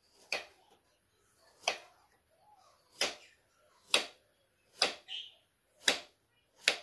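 Kitchen knife slicing a cucumber into rounds and knocking on a wooden chopping board: seven sharp chops, about one a second.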